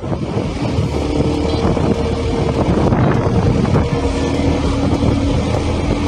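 Motorcycle engine running at a steady pitch as the bike rides uphill, mixed with wind noise on the microphone.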